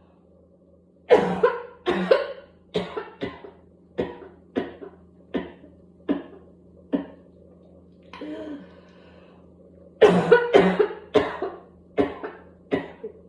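A whooping-cough paroxysm: about a second in, a rapid run of barking coughs starts and weakens over about six seconds. After a breath drawn in, a second loud burst of coughs follows near the end.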